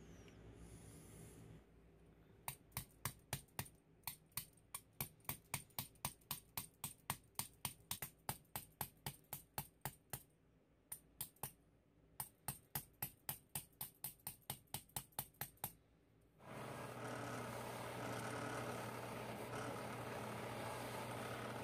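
Light, sharp metal taps, about three a second, as a wooden-handled punch is struck against a small brass lamp reflector held in a vise; the tapping pauses briefly about ten seconds in. Near the end a drill-press buffing wheel starts running with a steady hum and hiss as the lamp's brass top is polished against it.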